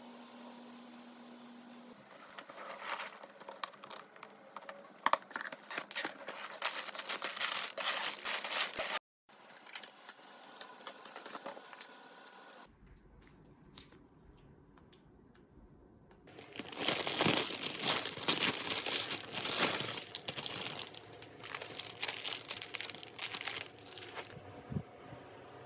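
Packaging of a LEGO set being handled and opened: dense crinkling and tearing. There are two long bouts, one from about 2 to 9 seconds and another from about 16 to 24 seconds, with a quieter stretch between.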